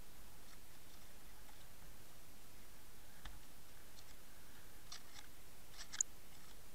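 Faint underwater ambience picked up through a camera's waterproof housing: a steady low hiss with a few small sharp clicks, the sharpest about six seconds in.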